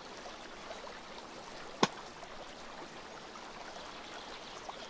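A single sharp computer-mouse click about two seconds in, over a steady background hiss of room and microphone noise.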